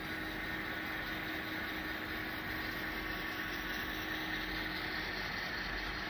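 HO scale Amtrak model passenger train running slowly along the layout track: a steady, even mechanical hum with no change.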